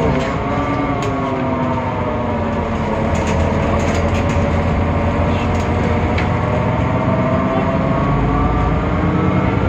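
Temsa Avenue LF city bus with a DAF PR 228 diesel and ZF Ecolife automatic gearbox driving, a steady engine drone under a whine of several tones that falls in pitch early on and then slowly rises again, with a few light rattles. This whine is the unusual sound that sets this bus apart from others of its type.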